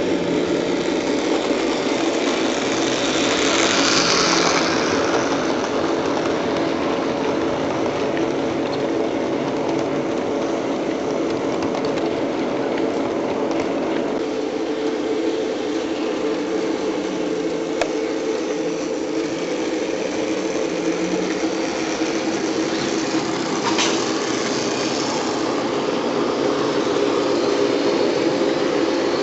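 00 gauge model of a British first-generation diesel locomotive running, giving a steady diesel engine drone. A brief swell of noise comes about three to five seconds in.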